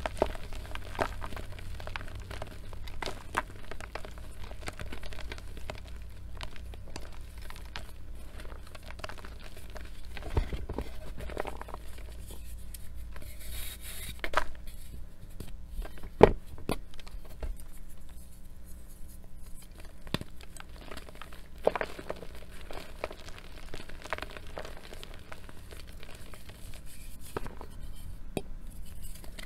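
Hands squeezing and crumbling soft, powdery reformed gym chalk: a dense, soft crunching crackle, with a few louder snaps as firmer chunks break.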